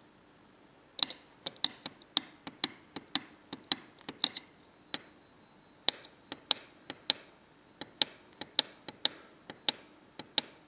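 Small tactile push-button switches on a TM1638 LED&KEY display board clicked repeatedly by a fingertip, stepping a hex value up. The sharp clicks come at an irregular two to three a second, starting about a second in.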